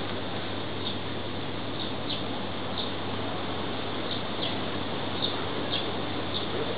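Steady background hiss with a low hum, and short high-pitched chirps repeating irregularly, about one or two a second.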